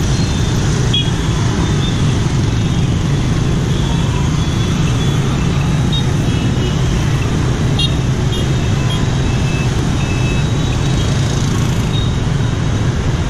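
Dense motor scooter traffic at a busy intersection: a steady rumble of many small engines passing, with short high beeps scattered through that fit scooter horns.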